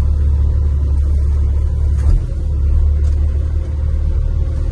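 Truck engine running with a steady low drone, briefly dipping about two seconds in.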